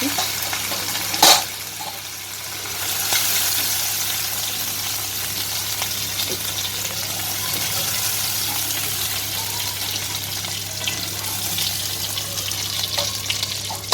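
Hot oil steadily sizzling in a kadai as fried prawns are lifted out, with one sharp loud knock about a second in.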